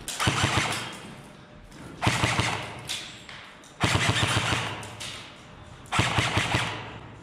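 Airsoft rifle firing four short bursts of rapid shots, about two seconds apart.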